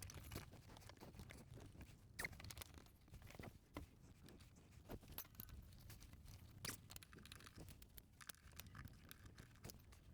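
Faint, scattered clicks and light scraping of small metal parts being handled, over a low rumble.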